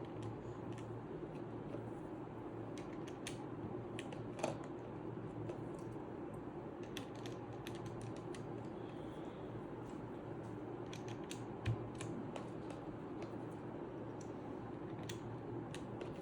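Small irregular plastic clicks as keycaps are handled and pressed onto the Redragon K530 Pro's mechanical switches, with two louder knocks, one near the middle and one about three quarters through, over a steady low hum.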